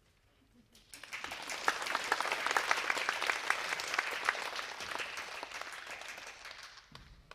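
Audience applauding: the clapping breaks out about a second in, swells, then dies away near the end.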